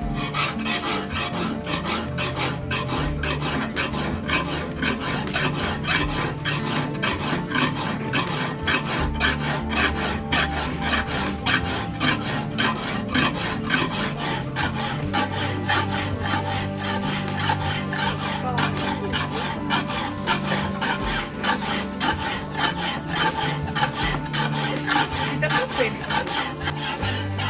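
Hand file rasping back and forth over a steel sickle blade made from a chainsaw bar, in a steady run of quick, even strokes.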